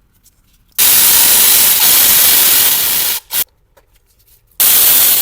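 Loud hissing of a pressurised spray in three bursts: a long one of about two and a half seconds, a brief puff, then another starting near the end.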